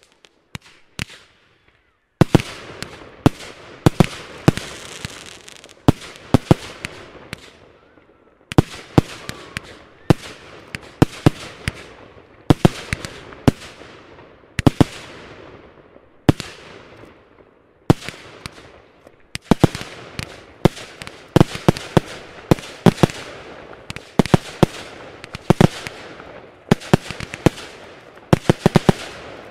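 Fireworks display: after about two seconds of quiet, a dense, irregular series of sharp bangs from aerial bursts, often several a second, each trailing off into a fading crackle.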